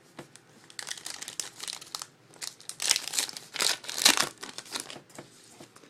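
Wrapper of a trading card pack crinkling and tearing as it is opened by hand. There are several crackly bursts over about three and a half seconds.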